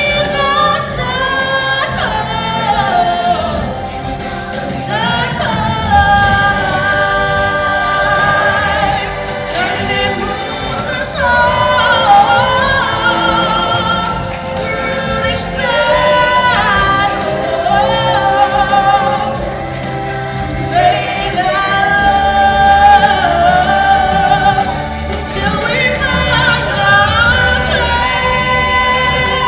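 Show music with several voices singing together in long held notes with vibrato over an instrumental backing.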